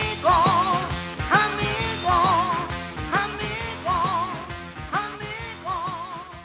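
Rock and roll music with a short wavering melodic phrase repeating about once a second, fading out toward the end.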